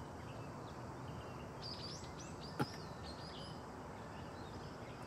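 Faint outdoor ambience with small birds chirping in short, quick calls over a steady low hiss, and one brief click about two and a half seconds in.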